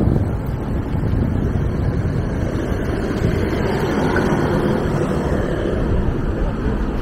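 Wind rushing over the camera microphone while cycling along a city street: a steady, fluctuating rush, with passing car traffic mixed in.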